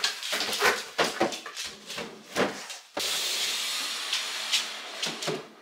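Wooden chest of drawers being tilted and pushed across a hard floor by hand: a quick run of knocks and scrapes, then about three seconds in a steady hissing scrape starts suddenly and runs for over two seconds.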